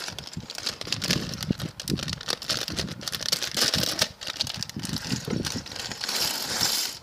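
Small plastic building bricks clicking and rattling against each other, with a plastic parts bag crinkling, as the pieces are shaken out onto paper. The crinkling is strongest about halfway through and again near the end.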